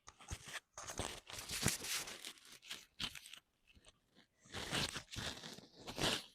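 Irregular rustling and crinkling handling noise, a run of crackly scrapes in two spells with a short lull about halfway.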